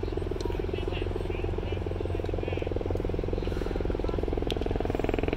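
Marching drumline playing on the move: snare and tenor drums in a dense, rapid, even drum pattern over a steady low bass-drum rumble.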